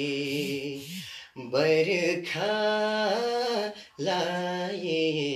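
A man singing a Nepali song unaccompanied, holding long notes with wavering ornaments in three phrases, with short breaths between them.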